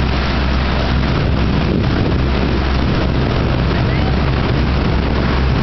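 Parasailing tow boat's motor running steadily at speed, a low drone under heavy wind noise on the microphone.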